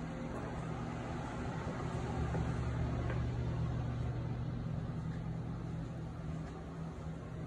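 Steady low mechanical hum with a few steady low tones, swelling slightly in the middle.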